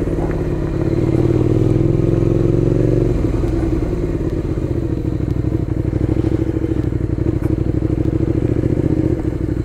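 Suzuki Gladius 400's V-twin engine running at low speed. The note eases off about three seconds in and settles into a steady, even pulsing.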